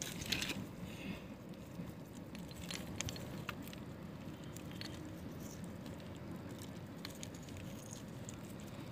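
Small clicks, taps and rustles of a wet nylon cast net and river pebbles being handled as fish are picked out of the net, over a steady low rush of flowing water.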